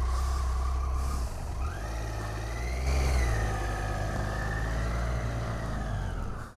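Motorcycle engine running steadily, then revving up as it pulls away about a second and a half in, its pitch climbing for a second or two before holding steady. It cuts off suddenly at the end.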